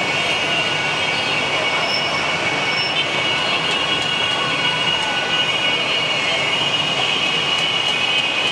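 Massed engines of a large pack of small motorcycles riding past together, a steady loud drone with a high whine running through it.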